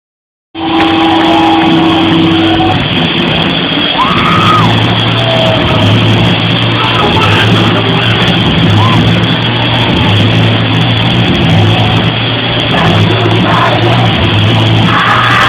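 Live rock band playing loudly, with a repeating bass line and voices sliding in pitch over the top; it starts about half a second in.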